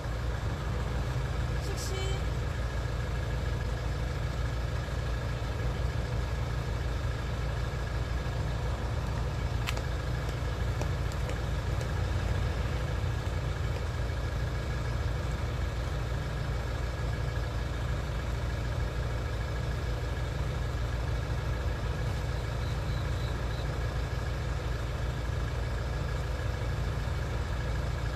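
Steady low mechanical rumble with a faint constant hum, like an engine idling, holding an even level throughout; a light click comes about ten seconds in.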